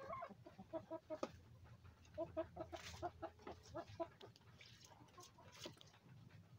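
A flock of backyard hens clucking softly: runs of short, quick clucks several times a second, with a few sharp clicks in between.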